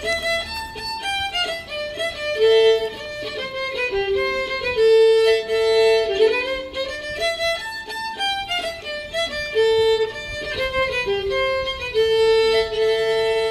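Solo violin playing a melody, one note at a time.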